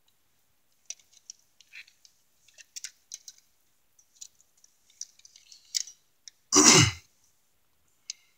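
Faint scattered clicks and rustles, then a man clears his throat once, about six and a half seconds in.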